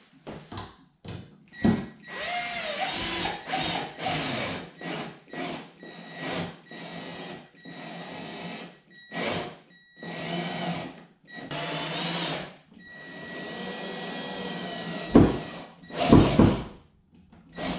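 Cordless drill run in many short stop-start bursts as the outer rail is fastened to a plywood dinghy hull, its pitch sagging and recovering under load. Two heavy knocks come near the end.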